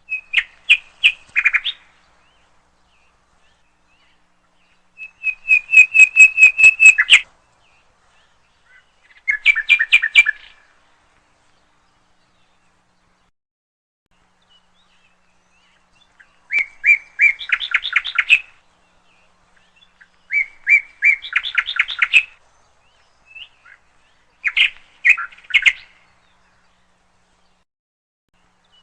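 A small songbird singing short phrases of quick, evenly repeated chirps, each phrase one to two seconds long, with gaps of silence between them, six phrases in all.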